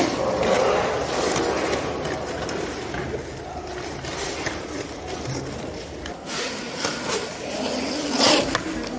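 Quad roller skate wheels rolling and scraping on a smooth rink floor as young roller hockey players skate past close by, with scattered clicks and a short, loud burst of noise near the end.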